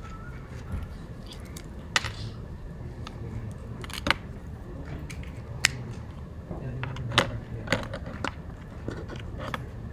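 Room noise in a lecture room: about seven sharp clicks and knocks at irregular intervals over a low steady hum, with faint murmuring voices.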